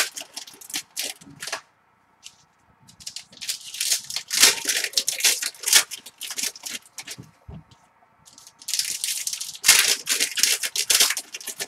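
Foil wrappers of 2016 Prizm football card packs crinkling and rustling as packs are opened and the cards handled. The sound comes in three stretches of crackling with short pauses between them.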